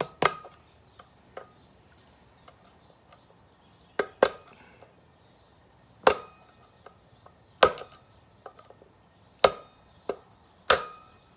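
Hammer giving light taps to a steel screwdriver used as a drift, seating a part onto the clutch side of a Stihl 046 chainsaw. There are about eight sharp metallic taps, each with a short ring, unevenly spaced: two quick pairs, then single taps every second and a half or so.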